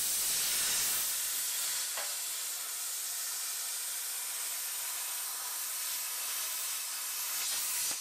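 Handheld plasma cutter cutting through sheet metal: a steady hiss of the arc and its air jet that stops near the end.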